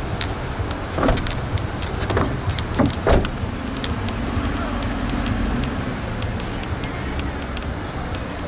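Steady low background rumble with several sharp knocks in the first three seconds, the last one the loudest, then a steady low hum for a couple of seconds about halfway through.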